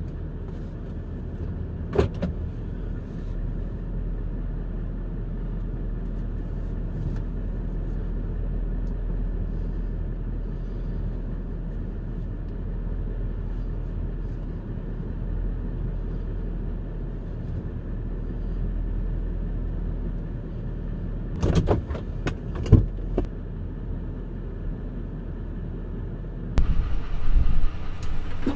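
Chevy 3500HD pickup's engine running steadily as the truck backs slowly toward a fifth-wheel trailer, heard as a muffled low rumble from inside the cab. A few sharp knocks come about two seconds in and again around twenty-two seconds, and louder knocks and clatter follow near the end.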